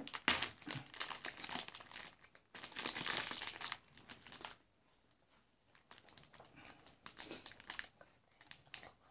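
Plastic Lego parts bag crinkling as it is handled and pulled at to get it open, in dense bursts for about the first four and a half seconds, then fainter, scattered crinkles.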